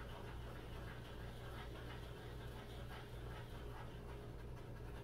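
Faint scratching of a beeswax stick crayon stroking lightly back and forth on paper, over a low steady hum.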